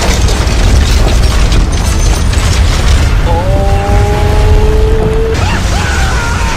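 Loud, steady low rumble with music over it. About three seconds in, one long held tone starts and lasts about two seconds.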